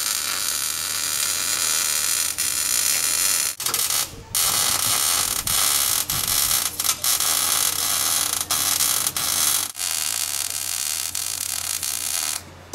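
Wire-feed (MIG) welding arc sizzling steadily as beads are laid on a steel patch. Several brief breaks as the trigger is let off and pulled again, and the arc stops about half a second before the end.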